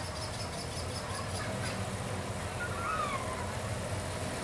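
Ride-on miniature railway train rolling along its track with a steady low rumble, a few brief chirps heard over it about three seconds in.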